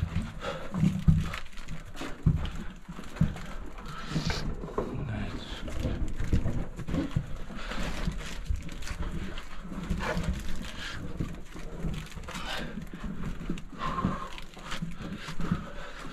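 Someone crawling through a narrow earth-and-rock tunnel: irregular scraping and knocks of body and gear against the walls and floor, with heavy breathing close to the microphone.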